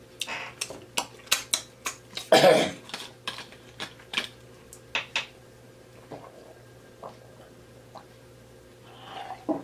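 Close-miked mouth sounds of eating: wet lip smacks and clicks as fingers are licked clean, the loudest smack about two and a half seconds in. After that come quieter clicks and ticks as a plastic water bottle is opened and drunk from.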